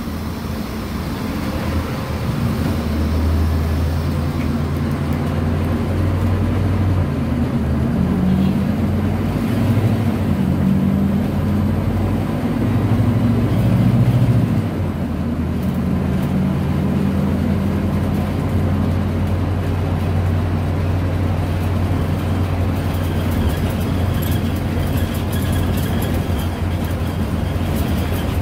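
Scania DC09 five-cylinder inline diesel engine of a rear-engined city bus, heard from inside the cabin, running under load as the bus drives. The engine note climbs and shifts several times, is loudest about fourteen seconds in, then drops back to a steady run as the ZF automatic gearbox changes up.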